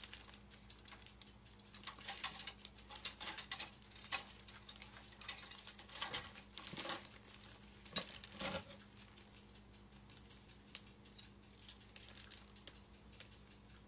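Clear plastic kit bags crinkling and grey plastic parts trees (sprues) clicking against one another as they are lifted and sorted in the kit box. It is a dense run of small crackles and clicks that thins out after about nine seconds.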